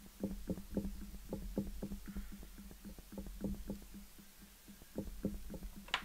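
Foam-tipped blending brush dabbed and swirled quickly over cardstock, laying on ink in a run of short, soft strokes about four a second. The strokes pause briefly and then come again a few more times near the end.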